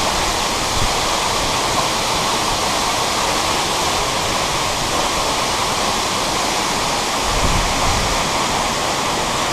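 Waterfall: a steady, dense rush of falling water, with a brief low rumble about seven seconds in.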